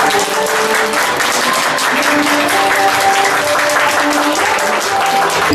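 A crowd of guests clapping steadily, with background music playing underneath.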